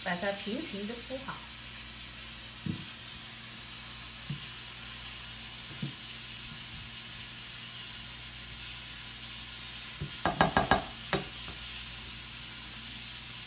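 Creamed corn being spread in a steel pot with a spatula: a few soft scraping thuds over a steady hiss, then a quick run of four or five sharp taps about ten seconds in as the spatula is knocked clean.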